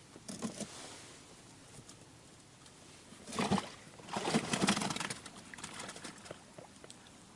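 Frogs croaking in low, purring pulsed bouts, the loudest about three and a half seconds in and again from about four to five seconds in.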